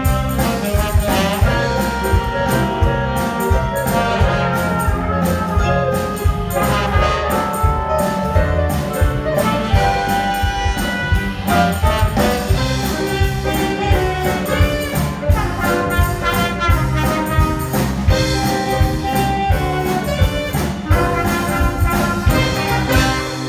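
Live band playing an instrumental passage, trumpet and saxophone carrying the tune over a steady drum beat and bass guitar. The music stops at the very end, the last sound dying away.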